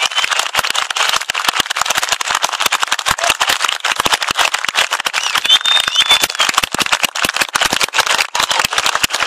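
A large outdoor concert crowd applauding, with many sharp, dense hand claps close by, and a short whistle about five and a half seconds in.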